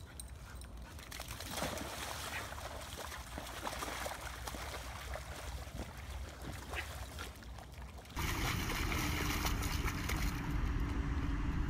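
Dogs splashing in muddy puddles: sloshing and gurgling water with small irregular splashes as a dog wallows in mud. About eight seconds in the sound changes abruptly to a louder scene with a low rumble, as a yellow Labrador paws and splashes in a puddle.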